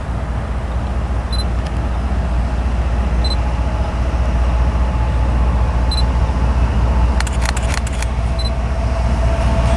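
Diesel freight locomotives approaching, a low steady rumble growing slightly louder. Short high chirps recur about every two seconds, and a faint steady tone and a cluster of clicks come in over the last few seconds.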